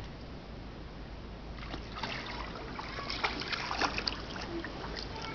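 Pool water splashing lightly as a small child kicks and paddles on his back, with small splashes starting about a second and a half in.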